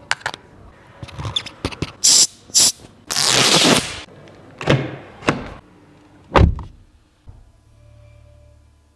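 Mercedes-Benz GLC 300 Coupe's door and fittings being worked: a run of sharp latch and trim clicks, a rushing whoosh about three seconds in, and a heavy door thunk a little after six seconds, then a faint low hum.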